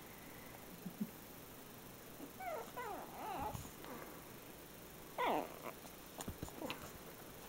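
Shih Tzu puppy whining and yipping in short cries that fall in pitch: a cluster about two and a half seconds in and a louder one about five seconds in. A few soft clicks follow near the end.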